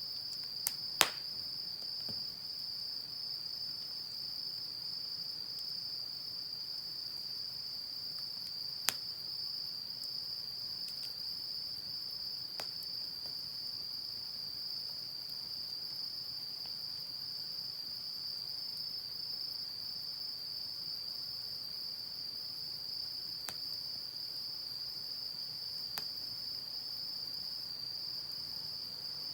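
Insects, crickets by their sound, chirring in one steady high-pitched trill, with a few sharp pops from a wood fire, the loudest about a second in.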